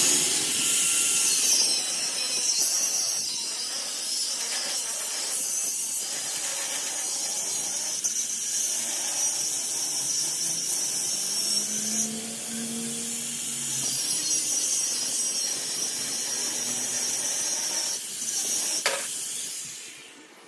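Workshop tool work on metal: a steady high-pitched hissing rasp that fades out near the end.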